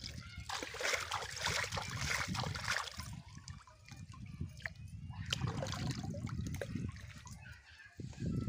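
Water splashing and sloshing as small fish are rinsed in a steel bowl at a pond's edge, with a louder spell of water being poured out of the bowl in the first few seconds, then quieter splashes and the clinks of hands working in the bowl.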